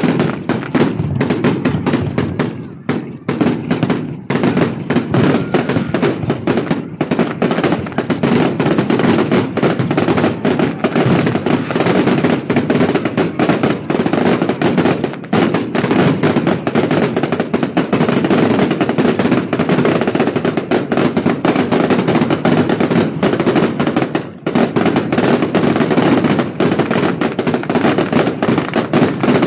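Fireworks display barrage: rapid, near-continuous bangs and crackling from many shells bursting at once, barely pausing, with a short lull about three seconds in and another near the end.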